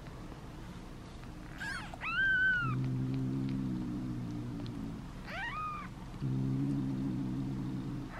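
Newborn kitten mewing: a high, thin cry about two seconds in, another about five seconds in, and a short one at the end, each rising then falling, from a hungry kitten at a syringe feeding. Between the cries runs a low, steady hum.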